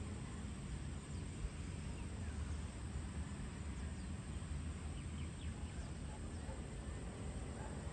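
Outdoor ambience: a steady low rumble with a few faint bird chirps about halfway through.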